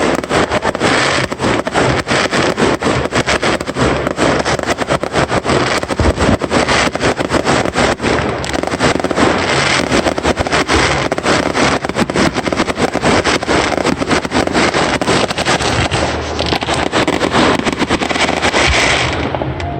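Fireworks going off in a rapid, unbroken string of crackling bangs that lasts throughout.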